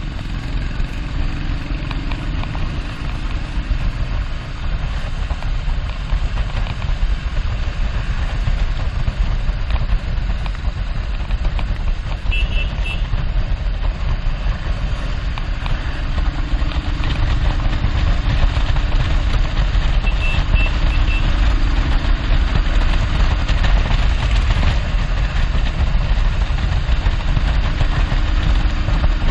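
Motorcycle engine running steadily at cruising speed under a loud rush of wind and road noise on the camera's microphone. Two short high beeps sound, one near the middle and one about two-thirds of the way through.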